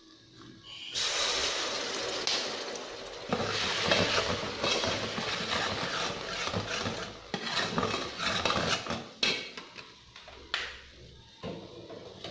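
Cooking oil hitting a hot steel pot and sizzling, starting about a second in, then a metal ladle stirring and scraping round the pot with repeated clinks and knocks over the continuing sizzle.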